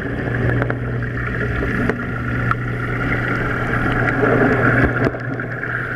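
Steady low hum of a fish tank's water pump, with the rushing, bubbling noise of circulating water.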